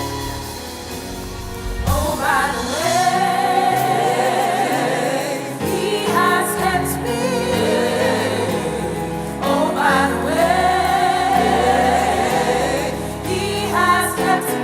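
Gospel vocal group singing over instrumental backing: a quieter held-chord intro, then sung phrases coming in about two seconds in and recurring every few seconds.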